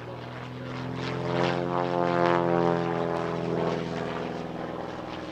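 Great Lakes biplane's piston engine and propeller droning through an aerobatic pass. It swells to its loudest about two seconds in, then eases off.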